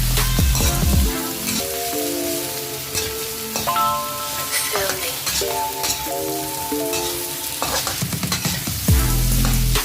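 Chicken feet sizzling in hot oil with sautéed onion, garlic and ginger, stirred in the pan with scattered clicks and scrapes. Background music with a melody plays over it.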